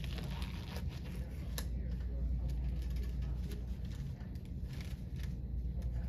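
Crinkling of a paper wrapper and rustling of latex-free gloves being pulled onto the hands, heard as scattered short crackles over a steady low hum.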